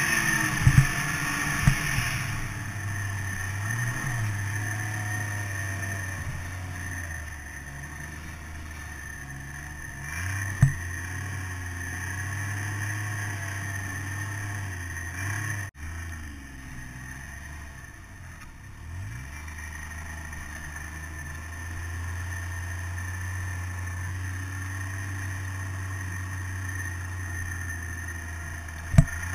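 Snowmobile engine running at a fairly steady pace while riding through powder, heard from on the sled, with a few sharp knocks along the way.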